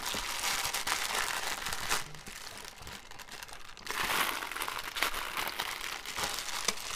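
Grey plastic mailing bag crinkling and crackling as it is pulled and torn open by hand. The crinkling thins out about two seconds in and picks up again about four seconds in.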